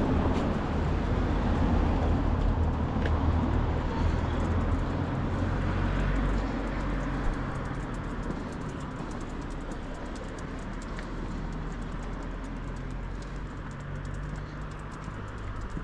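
Street traffic: a vehicle engine rumble and road noise, louder for the first several seconds and then easing off to a lower steady hum.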